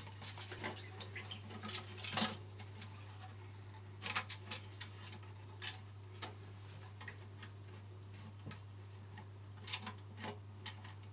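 Scattered light clicks and knocks of plastic flush-valve parts being handled and pushed into place inside a ceramic toilet cistern, the sharpest about two and four seconds in, over a steady low hum.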